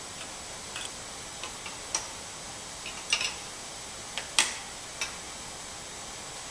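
Metal wrench clicking against the steel injector line nuts as they are threaded and tightened onto the VE injection pump's outlets: a handful of scattered sharp metallic clicks, the loudest about four and a half seconds in.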